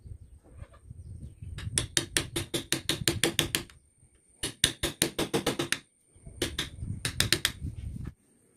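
Carving chisel tapped with a mallet into wood, in three runs of quick, light taps over a low rumble that cuts off near the end.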